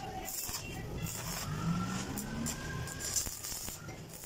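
Arc welding on a steel pipe frame, crackling in patches. Over it a passing vehicle's engine accelerates, its rising pitch the loudest sound from about a second to two and a half seconds in.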